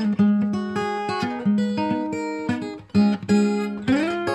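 Background music: an acoustic guitar playing plucked and strummed notes, with a note sliding up near the end.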